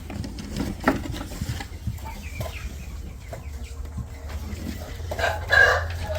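Chickens clucking, with short scattered calls and a louder call about five seconds in, over a steady low rumble.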